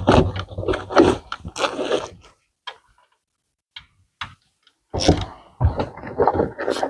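Clicking and clattering of hand tools and metal pieces as screws are taken out of the convertible top's side trim. It comes in two spells of quick clicks and knocks with a pause between.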